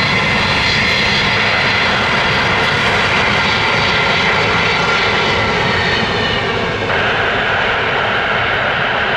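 Jet airliner engines running steadily with a loud, even rush and a faint whine, the tone shifting slightly about seven seconds in.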